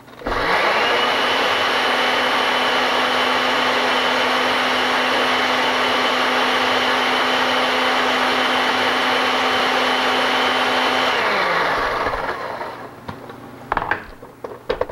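Countertop blender with a glass jar running at a steady speed, blending chipotle peppers into a paste, with a steady motor whine. About eleven seconds in, the motor is switched off and winds down with falling pitch, followed by a few knocks as the jar is handled.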